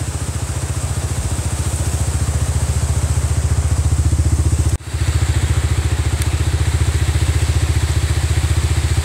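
ATV (four-wheeler) engine running steadily with an even, rapid pulse, broken by a very brief dropout a little after halfway.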